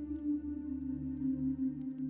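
Ambient background music of long held tones, with a new lower note coming in under a second in.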